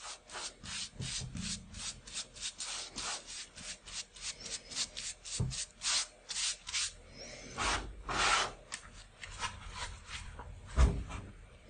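Flat paintbrush scrubbing gesso onto the edges of a stretched canvas: quick, even back-and-forth strokes, about three or four a second, with a short pause about seven seconds in. Near the end there is a single low knock, the loudest sound.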